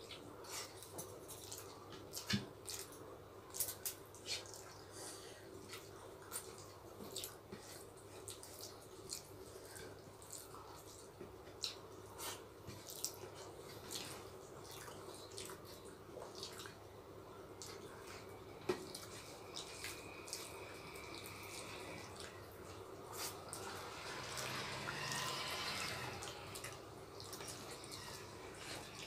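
Two people eating rice and chicken curry by hand: faint wet chewing and lip-smacking with fingers squishing rice on plastic plates, a string of small scattered clicks and smacks over a faint steady hum.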